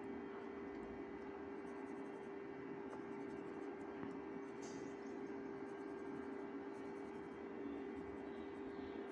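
Pencil tip scratching and rubbing on paper as lines are drawn, over a steady low hum.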